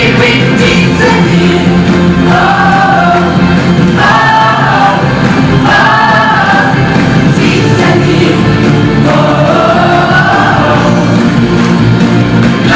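Song playing, with several voices singing together over a steady instrumental backing.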